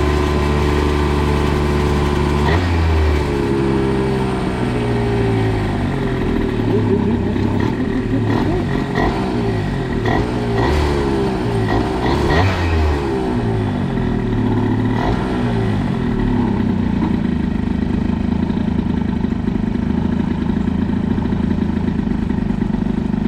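Moped's Polini 50cc two-stroke engine running hard on a top-speed run, its pitch rising and falling through the middle, then holding steady for the last few seconds.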